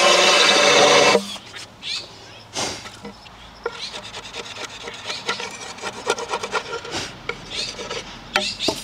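A cordless drill bores into a wooden board with a steady whine and stops about a second in. Then come repeated short hand-scraping strokes of a steel scraper across the wood's face, smoothing it.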